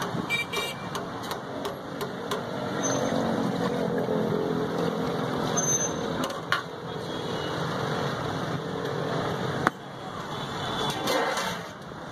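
Steady street traffic noise with some voices, and a few sharp clinks of a steel ladle and glass at a juice stall, the sharpest about two-thirds of the way through.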